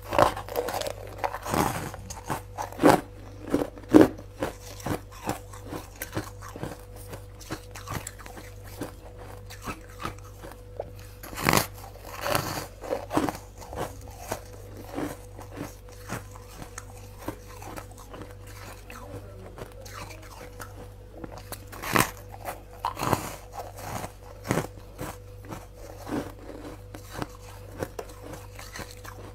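Bites and chewing of soft freezer frost packed into moulded shapes: a run of crisp crunches, with a few louder bites at intervals, over a faint steady hum.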